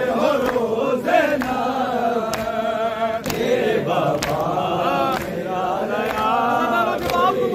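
A group of men chanting a noha (Shia lament) together in wavering, melismatic voices, punctuated by sharp slaps about once a second: the chest-beating (matam) of the mourners.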